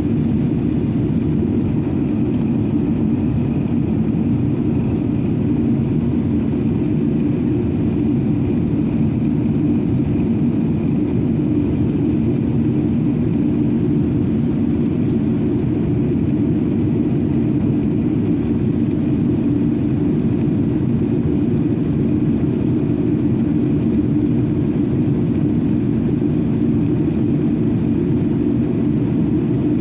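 Steady cabin drone of an Emirates Airbus A380-800 in flight, a deep rush of engine and airflow noise that holds even, with a faint high steady tone above it.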